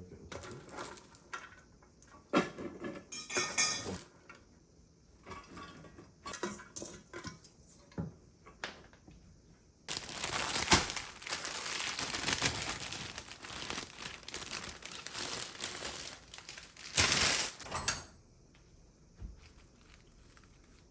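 Kitchen work: dishes, pots and utensils clinking and knocking in scattered strokes. About halfway through there are some six seconds of steady hiss, followed by one short louder burst.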